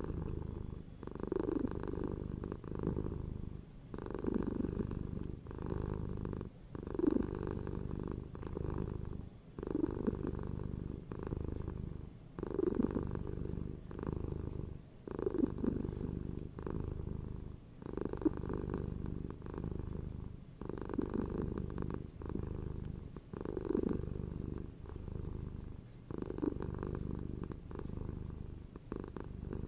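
A cat purring steadily, growing louder and softer about every three seconds with its breathing in and out.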